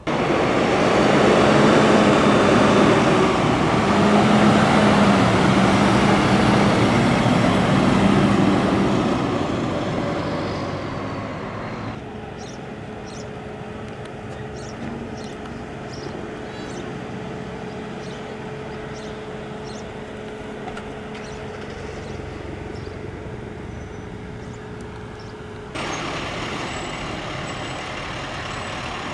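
Heavy fire-truck engines driving past in a string of short clips. First a US Forest Service water tender pulls out close by, its diesel engine running loud and steady for about ten seconds before fading. Then a quieter steady engine hum, and near the end a louder truck passing again. No sirens.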